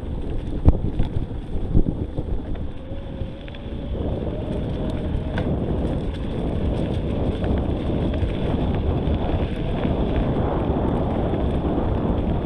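Wind buffeting the microphone: a loud, steady rumble, with a couple of sharp knocks in the first two seconds.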